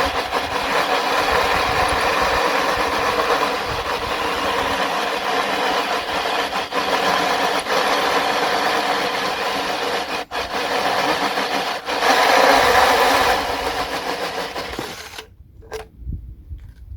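Power drill running a hole saw cutting into aluminium plate, a steady whirring grind that stops about fifteen seconds in.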